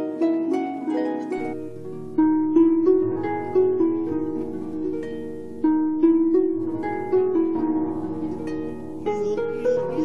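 Instrumental harp music: a melody of plucked notes and chords, each note ringing and fading.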